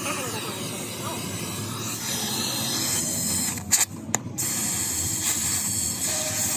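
A steady spraying hiss starts about two seconds in, broken briefly by a couple of sharp clicks midway, over a low background rumble.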